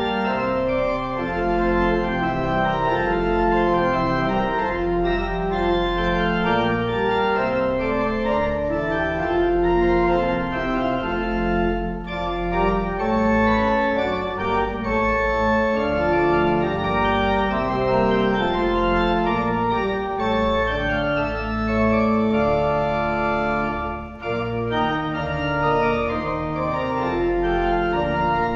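Church organ playing slow, held chords that change one to the next, with a short dip in loudness about 24 seconds in.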